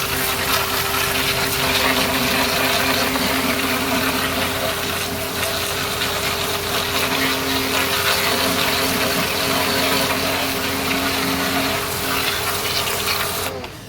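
Pressure washer running and spraying water, a steady pump hum under the hiss of the jet; it cuts off suddenly near the end.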